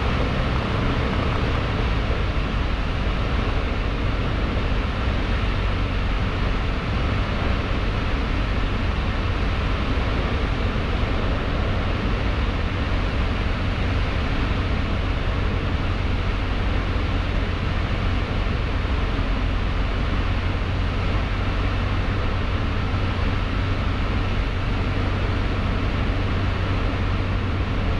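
Cessna 152's Lycoming four-cylinder engine and propeller droning steadily in cruise flight, heard inside the cockpit with the rush of airflow over the cabin.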